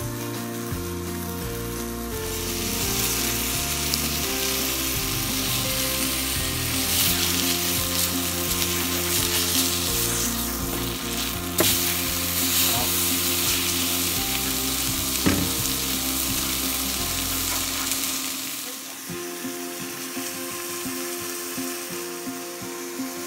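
Filet mignon searing in a stainless steel skillet, a loud steady sizzle that builds about two seconds in and eases off near the end, with two sharp clicks midway. Background music plays throughout.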